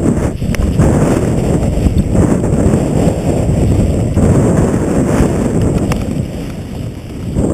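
Wind rumbling on a skier's camera microphone during a fast downhill run. It eases for a moment near the end, then picks up again.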